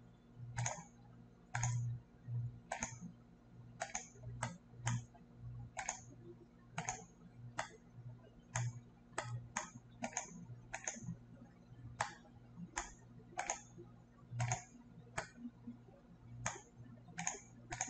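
Computer mouse clicking, about two dozen single clicks at an uneven pace of one to two a second.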